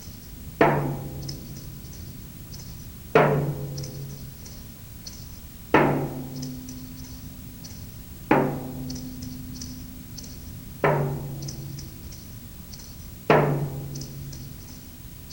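Slow accompaniment music for the exercise: six deep struck notes, one about every two and a half seconds, each ringing and fading, with light high ticks in between.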